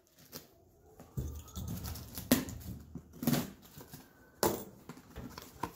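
A heavily taped cardboard shipping box being opened by hand: tape and cardboard rustling and tearing from about a second in, with three sharp knocks as the flaps are worked.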